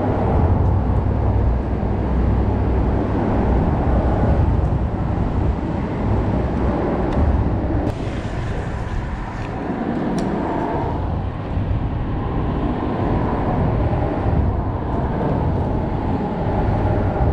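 Steady low rumble of road traffic crossing the bridge overhead.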